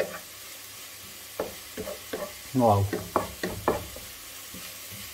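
Chopped onion, green onion and grated carrot sizzling in oil and soy sauce in a frying pan as they caramelise. A wooden spatula stirs and scrapes across the pan in several short strokes.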